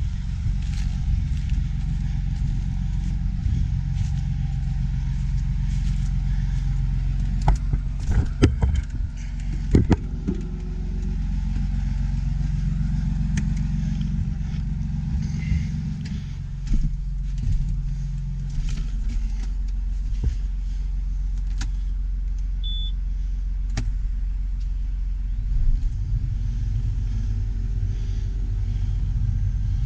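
A heavy farm vehicle's engine running steadily, its pitch shifting a few times. A cluster of sharp knocks and rattles comes about eight to ten seconds in.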